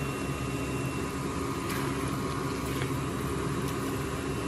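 Steady mechanical hum with a few faint soft clicks.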